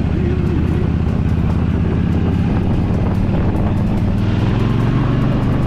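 Yamaha V Star 1300's V-twin engine running steadily under way, with a slight change in its note about four seconds in.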